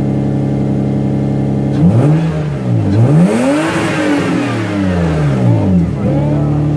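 Lexus GS300's 2JZ-GE inline-six, breathing through newly installed OBX headers and midpipe, idling and then revved twice: a short blip about two seconds in, then a longer rev that rises and falls. It settles back to idle near the end.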